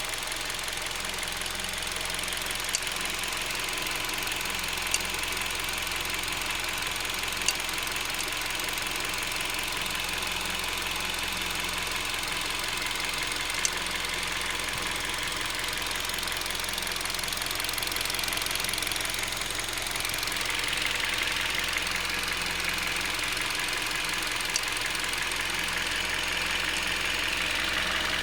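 Hyundai Solaris engine running under the hood, with an occasional sharp single knock every few seconds at irregular intervals, like two small metal balls striking each other. The cause of the knock is unknown to the owner.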